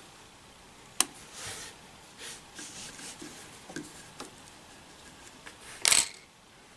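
Hard objects being handled: a sharp click about a second in, then light scraping and rubbing, and a louder scrape near the end.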